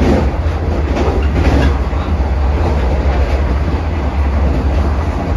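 Vande Bharat Express electric train running at speed, heard from inside the driver's cab: a steady low hum with the wheels clacking over the rails.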